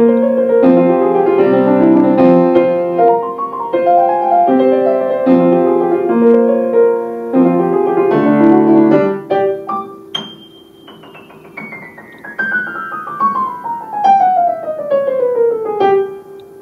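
Steinway & Sons grand piano played by a child: repeated chords for the first half. About ten seconds in, the playing turns quieter and a long, even run of notes falls from high in the treble down to the middle of the keyboard over a sustained low note.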